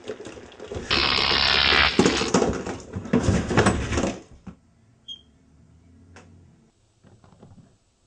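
A burst of hissing radio static about a second in, followed by loud crackling that dies away after about four seconds.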